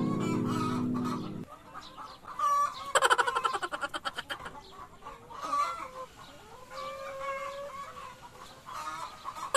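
Hens clucking and giving short calls, with a quick run of clucks about three seconds in. A held music chord fades out in the first second and a half.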